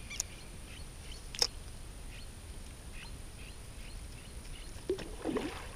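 Faint scattered bird chirps over a quiet background, broken by two sharp clicks in the first second and a half and a short burst of noise near the end.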